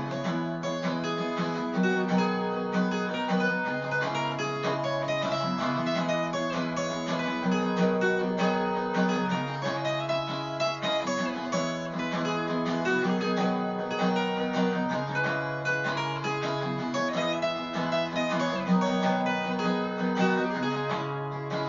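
Background music: a rapidly picked acoustic guitar playing steadily.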